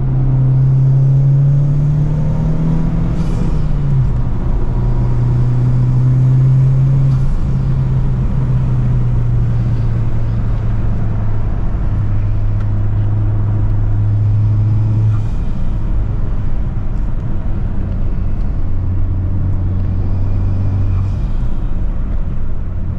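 Honda Civic Type R engine and intake running under way, the note rising briefly about three seconds in and dropping, then holding steady at pitches that step a little lower.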